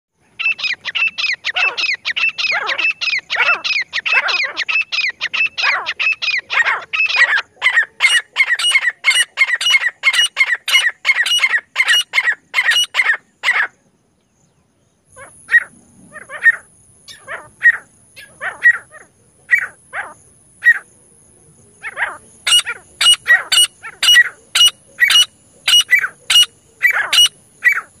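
Grey francolins calling: a fast run of repeated shrill notes, several a second, then a short pause, a stretch of sparser single notes, and another fast run near the end.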